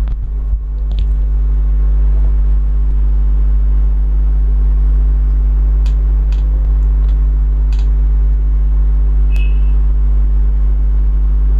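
A steady low electrical hum throughout. Over it, a few faint taps and a short squeak of a marker writing on a whiteboard in the second half.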